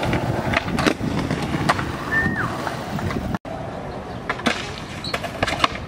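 Skateboard wheels rolling on concrete with a steady rumble, broken by several sharp clicks and knocks of the board as skaters ride up to and onto a concrete ledge.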